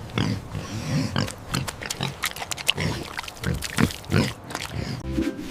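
Pig grunting: a quick, irregular series of short grunts.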